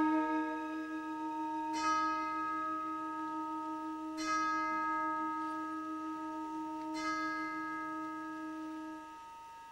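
A bell struck three times within the musical score, about two and a half seconds apart, each stroke ringing on with long-held, overlapping tones. The ringing fades away near the end.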